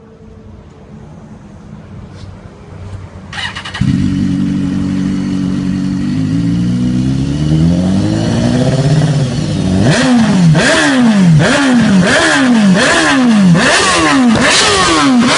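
BMW S1000RR inline-four with an aftermarket carbon-fibre F1 exhaust starting: the starter cranks briefly and the engine catches about four seconds in. It settles into a steady idle, is revved slowly upward, and from about ten seconds in is blipped in loud, quick revs that rise and fall about once every three quarters of a second.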